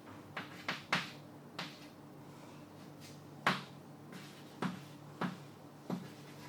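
Eight or so short light taps and clicks at uneven gaps, the loudest about three and a half seconds in, over a faint steady low hum.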